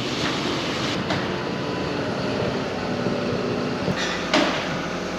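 Tow truck engine running steadily while it moves and sets down a car, with a short hiss about four seconds in.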